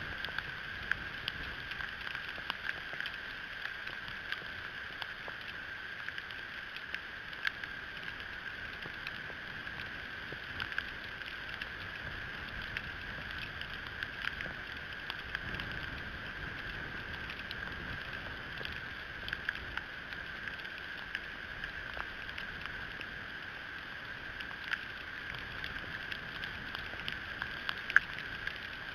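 Small ice pellets ticking irregularly on the nest sticks and on the bald eagle brooding there, over a steady hiss, with one louder tick near the end.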